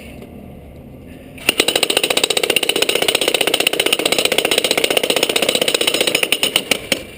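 Bosch electric jackhammer starting about a second and a half in and hammering at a rapid, steady rate of blows, then slowing and stopping near the end.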